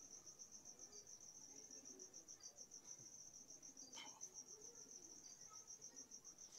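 Faint cricket chirping: a high, even trill of rapid pulses over an otherwise near-silent background, with a faint click about four seconds in.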